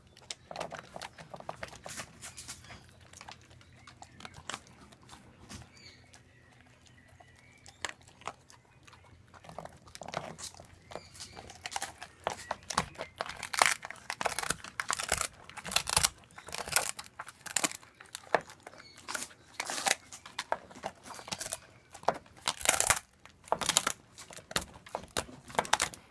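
Bernese mountain dog chewing and gnawing a dried pig ear, with irregular crunching and tearing. The crunches are sparse at first and come denser and louder from about ten seconds in.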